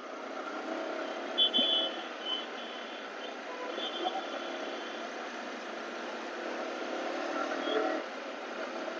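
Steady riding noise from a Yamaha R15M motorcycle, its 155 cc single-cylinder engine and the wind heard thinly through a clip-on wireless mic. About a second and a half in there is a short high-pitched beep from traffic, with fainter beeps until about five seconds in.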